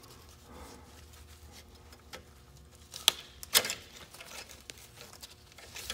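Pick tool prying at the metal keepers of an Eaton drum brake shoe's anchor pins: faint scraping with a few sharp metal clicks, two of them close together a little past the middle.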